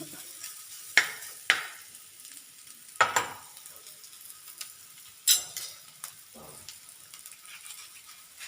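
Grated coconut with garlic and shallot frying in coconut oil, a steady high sizzle, stirred with a spoon that scrapes sharply across the pan a few times. The coconut is being roasted for a varutharacha (roasted-and-ground) curry paste.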